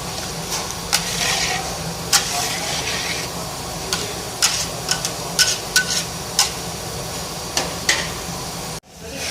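Petha halwa being stirred in a pan, with a steady sizzle and many sharp clinks of the spoon scraping the pan. The sound cuts off abruptly near the end.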